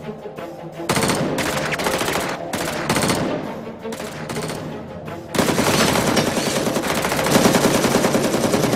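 Rapid automatic gunfire. It starts about a second in, eases off briefly, then comes back heavier and continuous from a little past halfway.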